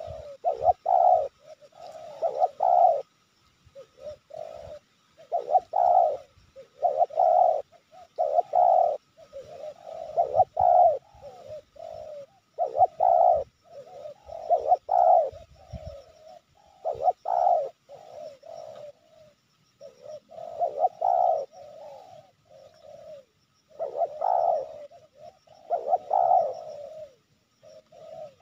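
Spotted dove (tekukur) cooing over and over, a string of coo phrases following each other every second or two with only short gaps.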